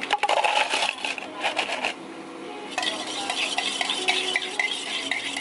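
A drink being stirred in a glass, with rapid clinks against the glass: a dense clatter over the first two seconds, then a steadier run of quick ringing clinks from about three seconds in.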